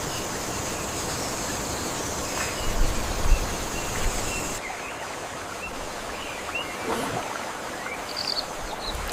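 Forest ambience: a steady hiss-like background with a few short, scattered bird chirps. A high, steady hum drops out suddenly about halfway through, and the background quietens there.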